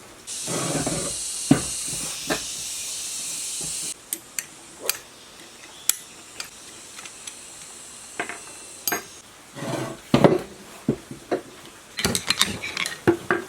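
A steady hiss for about three and a half seconds, then scattered metal clinks and knocks of tools and parts as a water pump's electric motor is taken apart.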